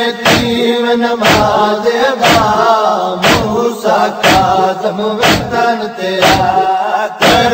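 Nauha chorus chanting a drawn-out, wavering lament melody, with a sharp beat about once a second.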